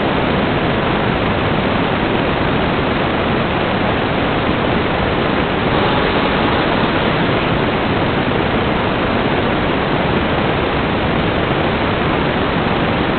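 Analog TV static: a loud, steady hiss of white noise with no change in pitch or rhythm.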